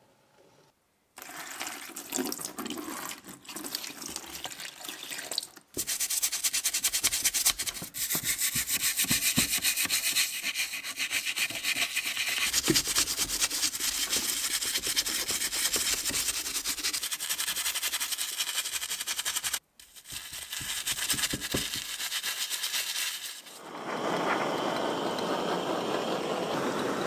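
Toothbrush scrubbing a rusty cast-iron grinder part in soapy water: fast rhythmic brushing that stops briefly twice. Near the end a handheld gas torch's flame takes over with a steady hiss.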